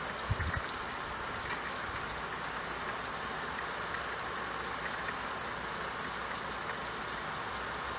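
Steady rain falling, an even hiss, with a few low thumps about half a second in.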